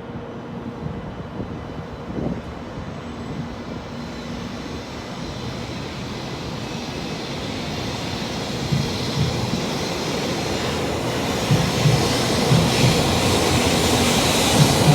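Sanyo Shinkansen bullet train approaching the station, its rushing noise growing steadily louder, with low wheel thumps coming in over the last several seconds.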